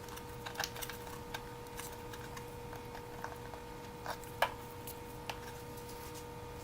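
Light, irregular clicks and taps of small wooden riser strips being handled and set in place around a kayak cockpit while they are glued, over a faint steady hum. The sharpest tap comes about four and a half seconds in.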